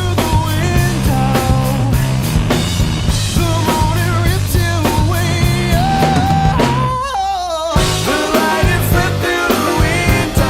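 A rock-style song: steady drum-kit beat, bass and a lead melody. About seven seconds in, the drums and bass drop out for under a second, leaving only the wavering melody, then come back in.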